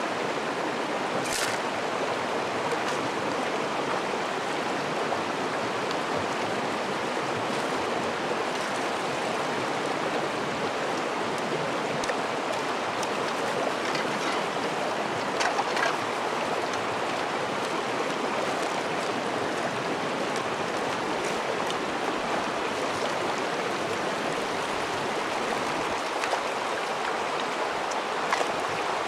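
Shallow, stony stream running steadily, with a few brief clicks about a second in, halfway through and near the end.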